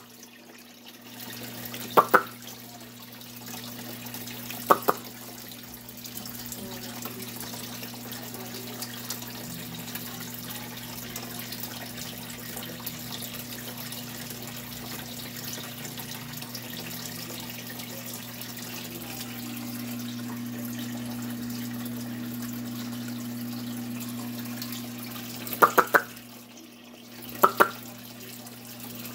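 Steady trickle of running water from the tank's filter over a low electrical hum, broken by four sharp clicks: two in the first five seconds and two close together near the end.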